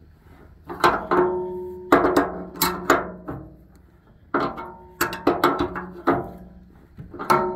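Sharp metal clanks in irregular clusters, each ringing on briefly at the same pitches. The source is an adjustable wrench working the nut of a long threaded-rod bearing press, drawing a new upper bearing race into its cup.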